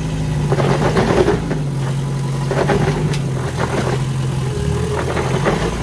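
Suzuki Samurai's engine running at low revs as it crawls up a rock ledge, the revs stepping up and down a little. Bursts of crunching and scraping from the tyres and underside working over the rock come every second or two.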